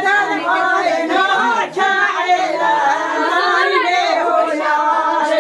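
Several voices singing together without instruments: an unaccompanied Kurdish folk song, sung on without a break.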